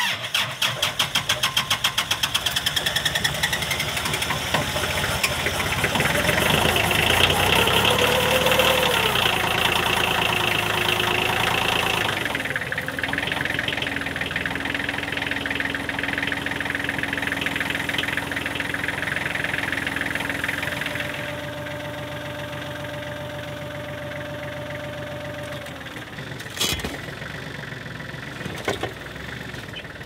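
Kubota L35 tractor-loader-backhoe's diesel engine starting in the freezing cold and running, with rapid even pulses for the first few seconds, then a steady whine that shifts pitch a few times as the machine is worked. A couple of sharp knocks near the end.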